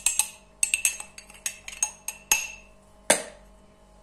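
Metal spoon clinking against a glass tumbler while scooping flour into it: about a dozen quick, sharp, ringing clinks, the loudest about three seconds in.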